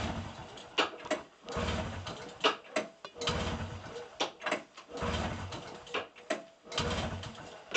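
A 1989 Arctic Cat Jag 340 snowmobile's two-stroke engine being pull-started by its recoil rope, about five pulls, each a whir of the cord with the engine cranking over and a click as the rope snaps back. It turns over without firing: the fuel lines and tank sat dry all off-season, and fuel has not yet reached the carburettor.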